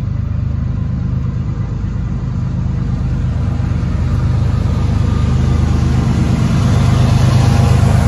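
Diesel locomotive engine running with a steady low hum, growing gradually louder as it approaches.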